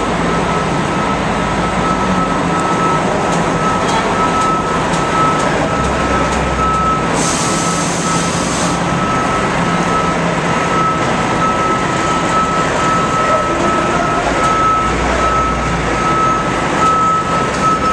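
A vehicle's reversing alarm beeping steadily over the loud running of a heavy truck engine, with a burst of hiss about seven seconds in.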